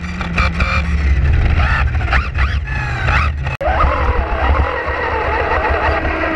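Onboard sound of a Vaterra Glamis Uno RC buggy driving: its electric motor and drivetrain whine, rising and falling in pitch with the throttle, over a heavy rumble of wind and tyre noise on the car-mounted camera. A little over halfway through the sound cuts abruptly and the whine turns steadier.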